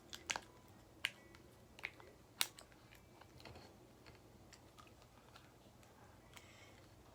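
Sharp clicks and taps of a plastic toy package being handled and pried at, several in the first couple of seconds, then only faint handling noises.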